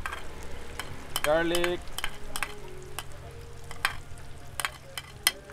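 Chopped garlic frying in melted butter in a wok: a steady sizzle with sharp clicks throughout as a spatula pushes the garlic off a plate into the pan.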